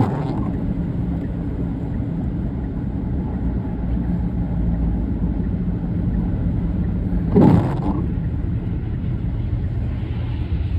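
Car driving on a slushy, snow-covered road, heard from inside the cabin: a steady engine and tyre rumble. A short, louder burst sounds about seven seconds in.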